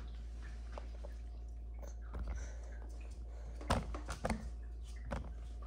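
A baby eating by hand at a high chair makes a few soft clicks, mouth smacks and light thumps, clustered about two seconds in and around four seconds, over a low steady hum.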